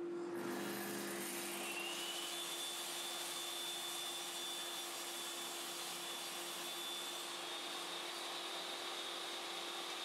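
Bench table saw running with a steady motor hum while a board of melamine-faced chipboard is fed through the blade. A high whine comes in about two seconds in and holds through the cut.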